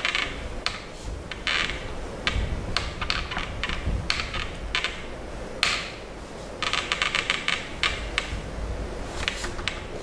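Whiteboard duster rubbing across a whiteboard to wipe it clean: a series of short rasping strokes, with one longer, quickly chattering stroke about two-thirds of the way through.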